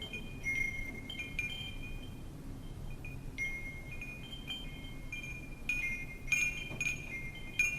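Wind chimes ringing in irregular, overlapping strikes, each tone lingering, with a louder flurry of strikes about six seconds in. A steady low rumble of wind runs underneath.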